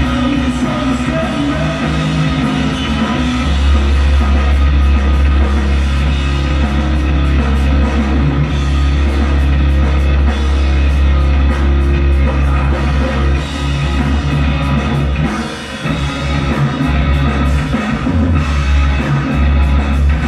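Rock band playing live: electric guitars and bass over a drum kit, with a heavy bass, heard played back from a TV recording of the concert.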